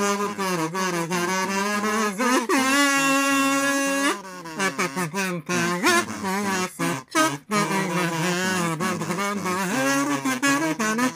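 Several layered kazoos buzzing a quick-moving song melody over a lower kazoo bass line, with one long held note about three seconds in.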